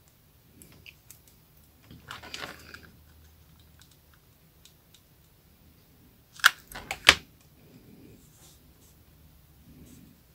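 Rolled newspaper tubes rustling as they are handled, then a quick run of three sharp clicks from a hot glue gun a little past the middle.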